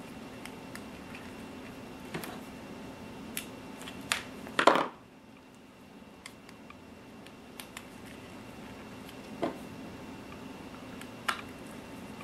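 Scattered light clicks and taps of small plastic model-truck parts being handled and fitted together, with one louder knock about five seconds in and a couple of sharper clicks later, over a faint steady hum.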